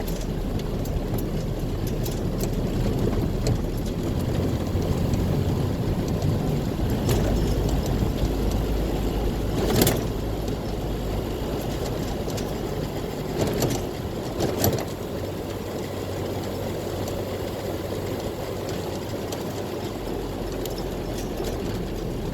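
Land Rover Series II's 2.25-litre petrol engine and newly fitted Suffix A gearbox under way, a steady rumble that is fairly smooth and quiet, with no loud gear whine. A few short knocks or rattles break in about ten seconds in and again around fourteen seconds.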